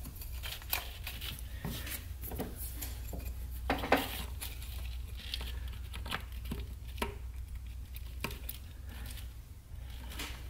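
Light rustling and scattered plastic clicks of a taped wiring harness in split loom being handled and fed under the intake tubing to an intake air temperature sensor, with one louder knock about four seconds in. A steady low hum runs underneath.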